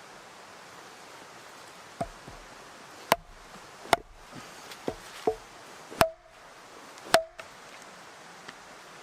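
A tool striking wood in about seven sharp, uneven blows, some with a short ringing note, as in chopping or splitting logs.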